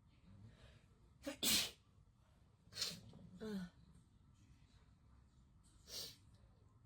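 A woman sneezing several times in a row, the first sneeze the loudest and a last one a few seconds later. The sneezes are a reflex set off by a nasal swab pushed into the nose for a Covid-19 test.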